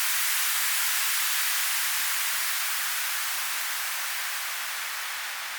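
Steady white-noise hiss with no beat or tune, strongest in the highs, fading slowly: the noise-effect tail that closes an electronic disco track.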